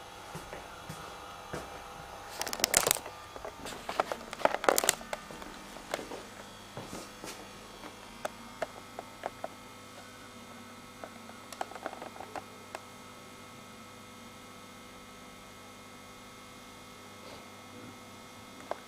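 Handling noise from a video camera being picked up and moved: a cluster of rustles and knocks about three and five seconds in, then scattered light clicks that die away, over a steady electrical hum.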